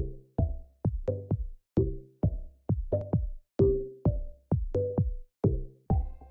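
Background music: an electronic track with a steady beat of short, sharply struck notes over a low bass, about two to three notes a second.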